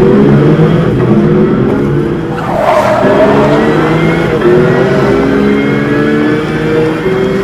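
Race-car engine sound, its pitch climbing in several long sweeps one after another, with a rushing pass-by whoosh about two and a half seconds in.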